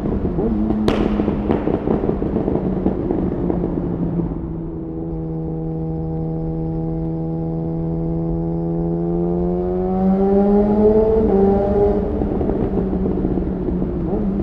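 Yamaha FZ1's inline-four running through a modified exhaust. It idles roughly with sharp pops about a second and two seconds in, then holds steady revs for several seconds and climbs briefly. It drops back to a lumpy idle, with another pop at the end.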